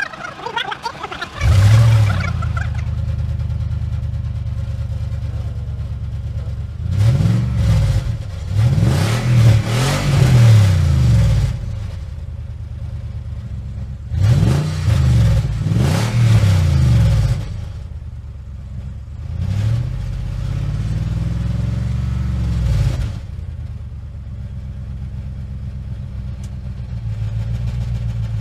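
A vehicle engine comes in suddenly about a second and a half in and idles with a low, steady sound. It is revved up and down in three bouts, each swelling and falling back to idle.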